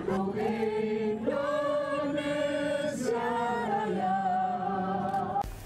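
Choral singing in long held chords, several voices together, the harmony shifting about three times before it breaks off shortly before the end.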